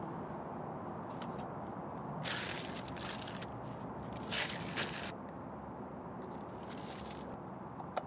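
Masking being pulled off an alloy wheel: playing cards slid out from between tyre and rim and paper pulled from behind the spokes. They rustle and scrape in two bursts, about two and four seconds in, over a steady hiss. A small click near the end as the centre cap is pressed into the hub.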